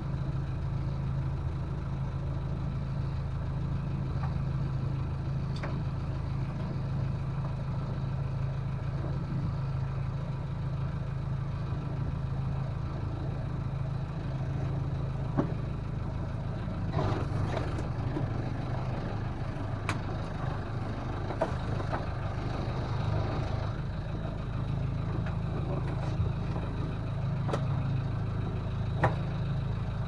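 Boat engine idling with a steady low hum. In the second half come scattered knocks and clatter as a tow line is handled and coiled on deck.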